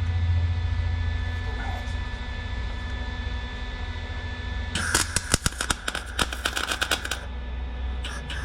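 A welder hums steadily. About five seconds in, a MIG welding arc crackles and pops in a rapid run for about two and a half seconds as a sheet-metal patch is welded.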